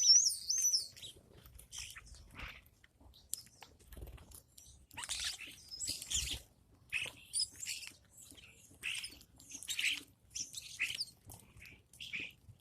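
Birds chirping in short, irregular calls, with a louder wavering call right at the start.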